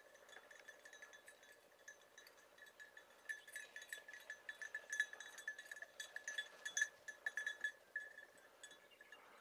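Small bells on hunting beagles' collars, tinkling irregularly as the dogs cast about through the grass. The ringing is faint at first and grows busier from about three seconds in.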